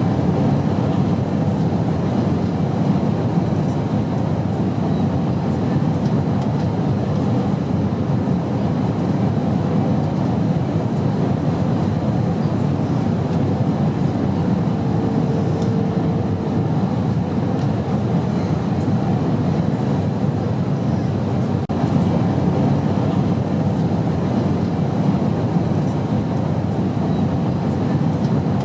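Steady cabin noise of an airliner in flight, a constant deep rushing drone of engines and airflow. A short faint tone sounds about halfway through.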